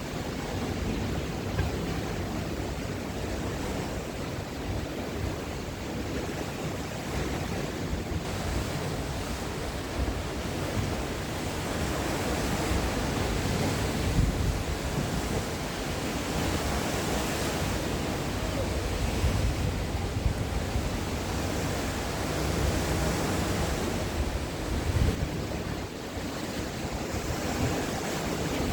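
Sea waves breaking and washing on the shore, a continuous surf that swells and eases over several seconds, with wind rumbling on the microphone.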